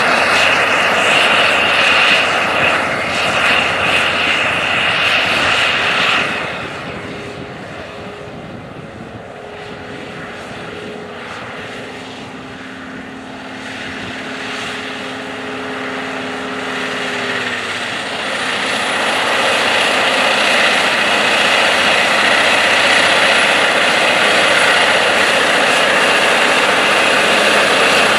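John Deere 9620RX four-track tractor's diesel engine working hard, pulling a 19-shank turbo chisel plow deep through the soil. The sound drops away about six seconds in as the tractor turns at the headland. It then builds back up, with a high whine rising a little past the middle, as the tractor digs back into the ground and pulls under heavy load.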